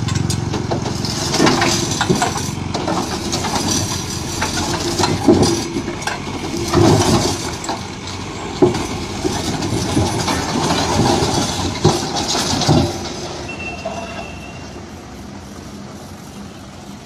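Heavy concrete pipes rolling off a flatbed truck and knocking against the pipes on the ground: a continuous rolling rumble with several sharp knocks, dying down after about 13 seconds.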